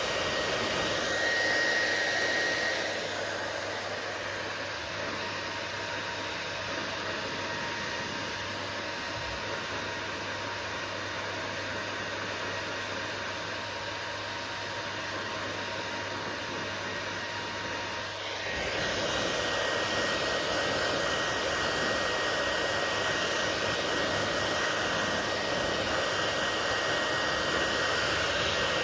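Hair dryer running with a steady blowing whoosh and a faint whine. It drops quieter a few seconds in and comes back up about two-thirds of the way through.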